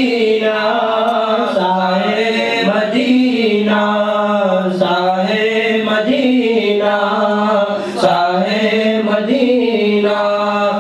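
Men chanting an Islamic devotional song (naat) through microphones, without instruments, in long held, gently wavering notes.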